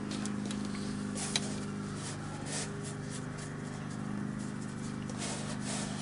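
A steady low hum, with several short scratchy strokes of a small watercolour brush being dragged over rough watercolour paper.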